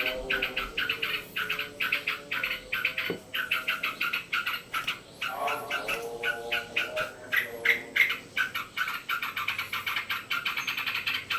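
Yellow-vented bulbul (trucuk) chattering in rapid, continuous bursts of sharp calls. Midway through, a cat meows once with a falling pitch.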